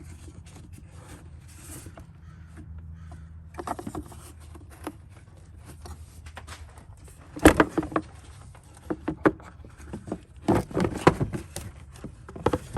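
Plastic air filter housing of a Mitsubishi Outlander being opened by hand: a series of sharp clicks and knocks as the clips are undone and the lid and filter are handled, loudest about halfway through and again near the end, over a low steady hum.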